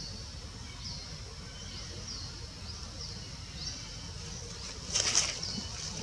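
Outdoor ambience: a short, high chirp repeats roughly once or twice a second over a low, steady background rumble. About five seconds in comes a brief rustling burst, the loudest sound.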